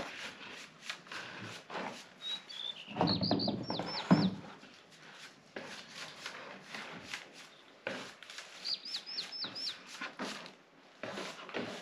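A small songbird calls twice, each time a quick run of about five high, falling chirps. Around it come frequent light clicks and knocks, louder about three to four seconds in.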